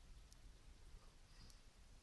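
Near silence: room tone with a few faint high clicks.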